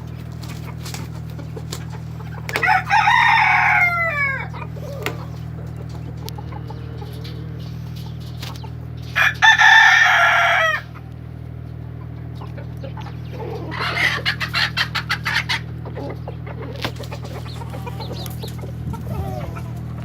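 Roosters crowing twice, each crow about two seconds long, then a run of short clucking calls. A steady low hum runs underneath.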